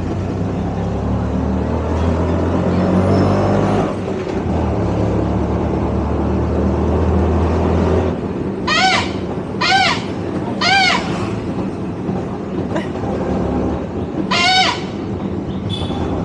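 Auto rickshaw ride: the engine runs steadily, then eases off about halfway. Horn toots follow, three short honks about a second apart and one more near the end.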